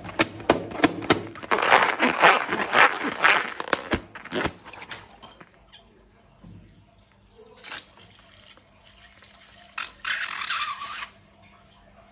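Slime being squeezed and mixed: wet, sticky crackling and clicking, dense at first and thinning out after about four seconds, with a short hiss near the end.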